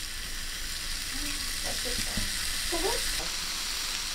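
Beef sizzling steadily as it cooks, a continuous frying hiss.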